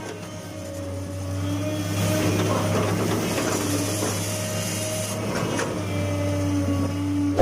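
Hitachi UH045-7 hydraulic excavator's diesel engine running steadily, getting louder and busier about two seconds in and easing back near the end. A single sharp knock comes right at the end.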